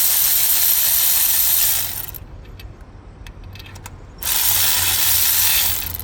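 Ratchet wrench clicking rapidly in two long runs with a short gap of scattered clicks between them, as a spark plug socket spins out a loosened spark plug.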